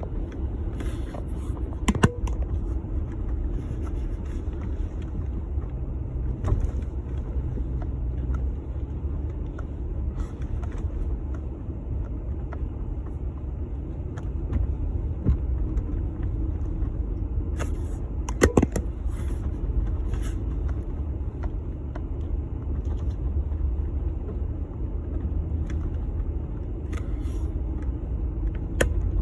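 Jeep Gladiator driving through snow on a trail: a steady low engine and tyre rumble, broken by a few sharp knocks, the loudest about two seconds in and again around eighteen seconds in.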